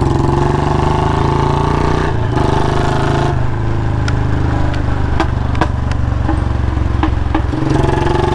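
Royal Enfield Bullet Standard 350's single-cylinder engine running through its loud exhaust at low speed, with a few sharp pops from the exhaust in the second half.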